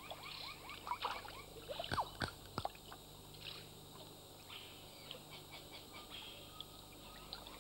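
Faint forest ambience of scattered animal chirps and short whistles, with three sharp knocks about two seconds in.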